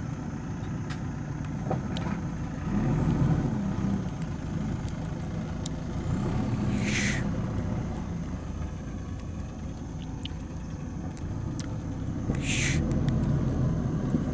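JCB 3DX backhoe loader's diesel engine running, swelling in level several times as it takes load while the backhoe arm works soil. Two short, sharp hisses come about seven and twelve and a half seconds in.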